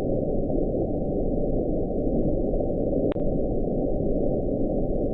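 Underwater hydrophone recording of the 'bloop', the sound NOAA linked to an Antarctic iceberg breaking off: a steady low rushing noise with nothing above the low range, and a brief click about three seconds in.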